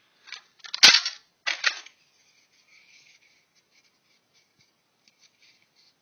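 A sharp, loud clack of a hand tool put down or dropped on a hard surface about a second in, followed by a couple of quicker clatters, then faint rummaging and light clinks of small tools in a toolbox.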